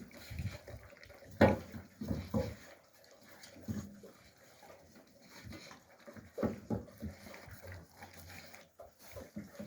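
Alabai (Central Asian Shepherd) puppies giving short, low vocal sounds, a handful of separate ones, clustered around a second and a half in and again around six and a half seconds in.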